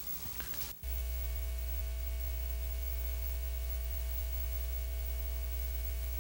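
Steady electrical hum with hiss, cutting in abruptly about a second in and holding unchanged, with a few faint steady higher tones above the low drone.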